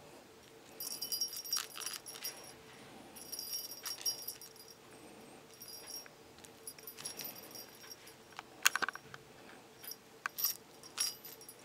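Small bell on a wand toy mouse jingling in short bursts as the toy is jiggled and batted by a kitten, with a sharp knock late on.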